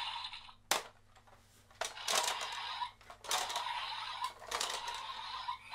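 DX Rolling Vistamp toy being worked: a sharp plastic click about a second in, then several second-long stretches of rattling and jangling.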